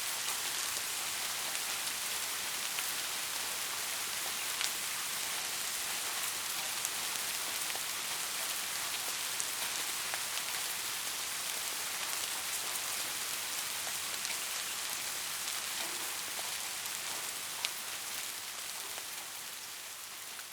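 Steady rain falling, an even hiss with scattered sharper drop ticks, easing off gradually near the end.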